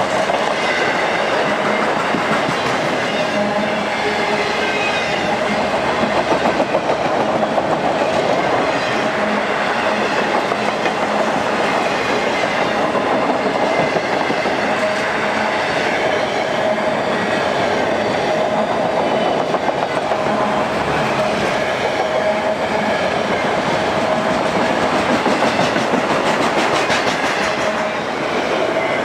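A freight train of autorack cars rolling past at speed: loud, steady rolling wheel noise with clatter over the rail and a steady ring underneath.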